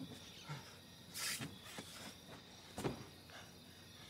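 A man grunting and breathing hard as he struggles on the ground, with one sharp knock about three seconds in; faint crickets underneath.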